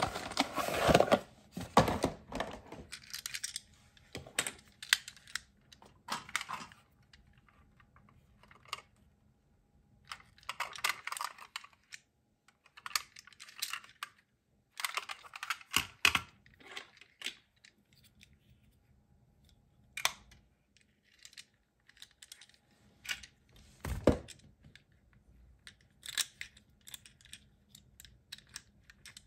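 Small plastic and die-cast toy ambulances handled in the hands, giving irregular bursts of light clicks and taps as the parts of a transforming robot ambulance toy are moved, with short quiet gaps between. A cardboard toy box rustles at the start, and one louder knock comes a few seconds before the end.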